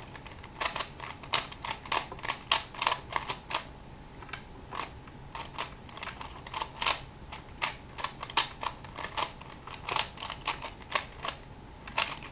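Plastic 3x4x5 cuboid twisty puzzle being turned fast in a timed speedsolve: quick irregular clacks of its layers turning, several a second, with short pauses between runs of turns.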